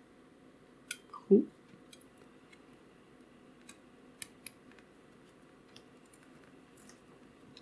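Small metal clicks and scrapes as a coiled-spring hook is worked into a mini flashlight's metal tail cap to pull out the switch button. The loudest sound is one short squeak about a second in that slides down in pitch, and a few sharp ticks follow.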